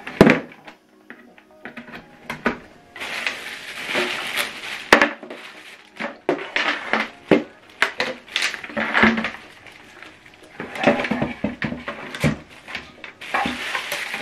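Handling noise: crinkling plastic packaging, with scattered clicks and knocks as power plugs go in and small speakers are set down on a table. The crinkling comes in two spells, a few seconds in and near the end.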